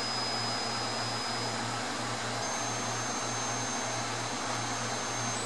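High steady test tone from a McIntosh MC75's output transformer and 6550 tubes singing along with a stepped sine sweep at full 75-watt power. The tone jumps up in pitch twice, over a steady rushing noise.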